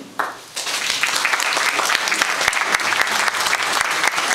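Audience applauding: many people clapping at once, starting about half a second in and keeping up steadily.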